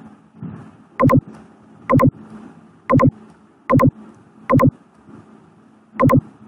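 Computer mouse button clicking six times at about one-second intervals, each click a sharp press-and-release pair, over faint low background noise.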